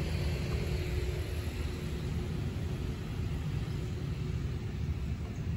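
Steady low outdoor rumble, with a faint thin hum through the middle.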